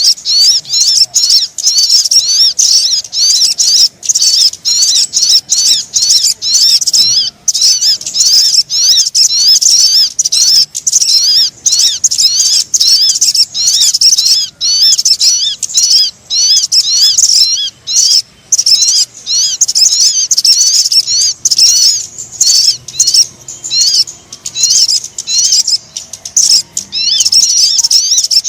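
Sogon birds calling in a bird-lure recording: a dense, loud stream of rapid, high-pitched chirps with quick up-and-down pitch sweeps, broken only by short gaps.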